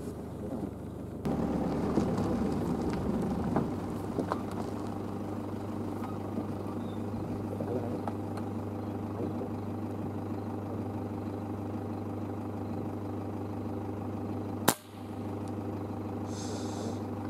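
Pickup truck engine running steadily with a low, even hum, which steps up in level about a second in. A single sharp crack about fifteen seconds in.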